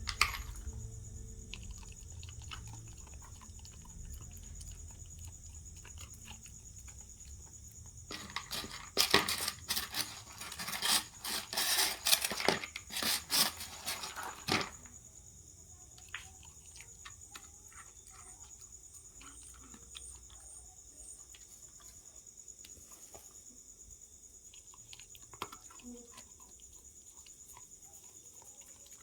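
A dog eating dry kibble: crunching and clicks of the food and bowl, dense and loudest for several seconds in the middle, then scattered.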